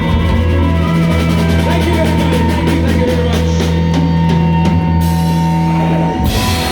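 Live rock band ending a song: a held low chord on bass and guitar under a fast run of drum hits. Near the end a cymbal crash lands as the chord cuts off.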